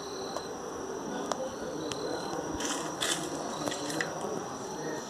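Insects chirping: short high trills, each about half a second, repeating every second or so over a steady high whine, with a few light clicks among them.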